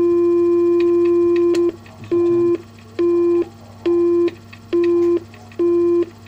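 Exchange tone from a mechanical telephone exchange tone generator. A steady low tone runs, stops about a second and a half in, then comes back as a busy-tone cadence: the same tone switched on and off about once a second, five times. A faint steady motor hum runs underneath, with a switch click as the tone changes.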